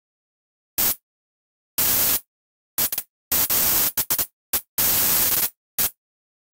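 Bursts of white-noise static, switched on and off abruptly in an irregular stutter of short blips and half-second blasts, with dead silence between them.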